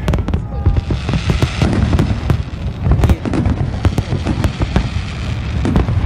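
Fireworks display with aerial shells bursting in quick, overlapping succession: many sharp cracks over a continuous bed of deep booms.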